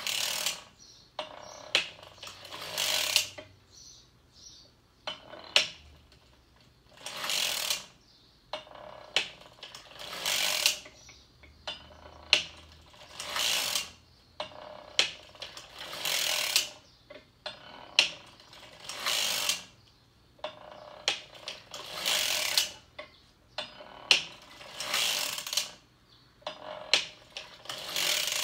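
Hand-cranked circular sock machine knitting in short passes: the cylinder needles and cam carriage clatter in a burst about every three seconds, with lighter clicks between.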